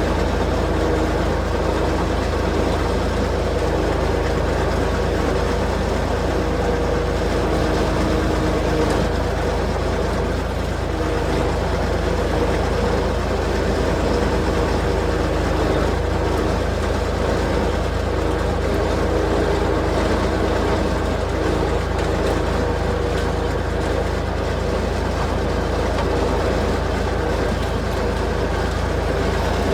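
A vehicle engine running steadily, with a strong low hum and a few steady tones above it that hold without a break.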